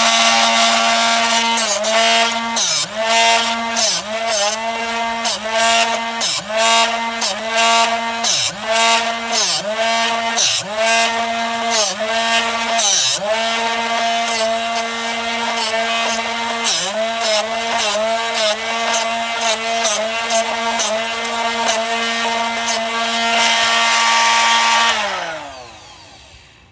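Drill Doctor 500X drill-bit sharpener's motor running while a badly worn bit is turned against its grinding wheel. Each grinding pass drags the motor's hum down in pitch, about once a second with a short pause midway. Near the end the motor is switched off and winds down.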